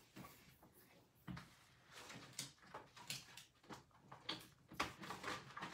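Faint, scattered rustles and light taps of paper and cardstock being handled on a tabletop, with a slightly louder tap near the end.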